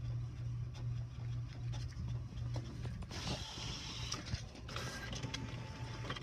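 Inkjet all-in-one printer working, with short whirring rushes about three seconds in and again near five seconds, over a steady low hum.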